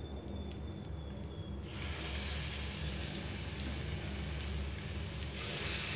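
Vegetable pakoras frying in hot oil in a frying pan: sizzling that starts suddenly about a second and a half in and swells near the end, over a steady low hum.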